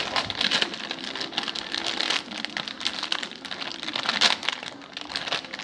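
Plastic-and-card toy packaging crinkling and crackling irregularly as it is handled and pulled open by hand.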